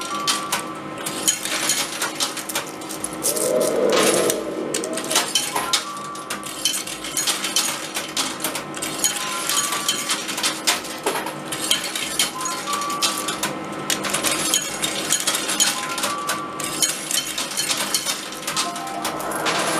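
Coin pusher arcade machine in play: metal coins clinking and clattering as they drop and are shoved across the playfield, with short electronic beeps recurring. A brief lower sound about four seconds in.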